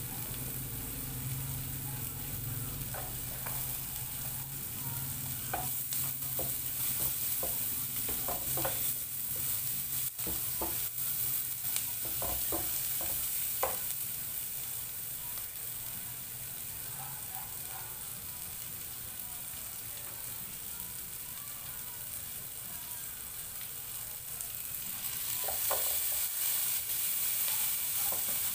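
Sliced onion and ginger sizzling in hot oil in a nonstick frying pan, with scattered small pops and clicks. The sizzle grows louder near the end as diced tomato goes in and a wooden spatula stirs it.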